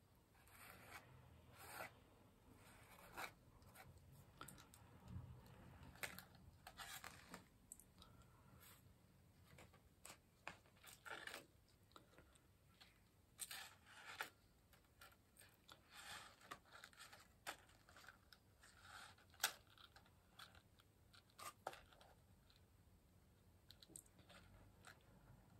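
Faint, irregular scrapes and rustles of a palette knife and a plastic stencil sheet being handled and worked over a paper journal page, with one sharper scrape about two-thirds of the way through.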